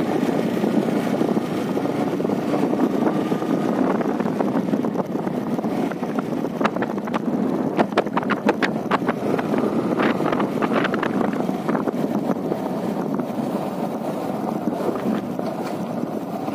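Yamaha R15 motorcycle's single-cylinder engine running steadily on the move, with wind rushing over the microphone. A run of sharp clicks and knocks comes about halfway through.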